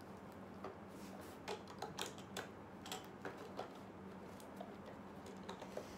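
Faint, irregular light clicks of plastic Lego pieces being handled as a minifigure is fitted into a Lego car.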